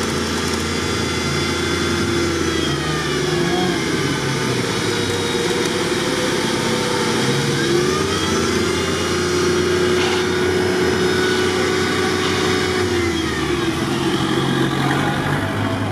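Off-road vehicle engines running and revving under load during a winch recovery of a heavy stuck vehicle, their pitch rising and falling.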